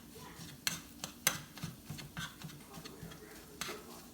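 A kitchen utensil clicking and tapping against cookware, a few sharp knocks with lighter ticks between, as the scrambled eggs are worked in the pan.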